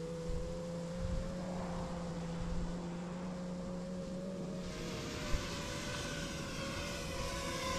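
Propellers of a 7-inch FPV quadcopter (iFlight Chimera 7) humming steadily as it flies in. A rushing hiss joins about five seconds in as the drone comes close to the pilot.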